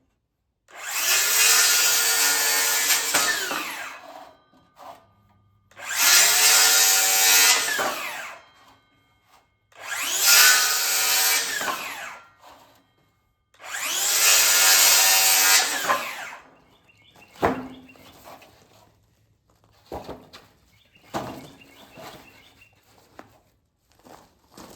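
Electric power saw cutting wood four times, each cut about three seconds long, with the motor winding down after each. A few sharp knocks follow in the last seconds.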